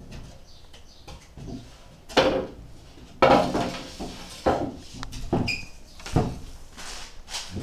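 Flat-pack cabinet panels knocking and clattering as they are handled and laid on a tiled floor, a handful of sharp knocks, the loudest about three seconds in.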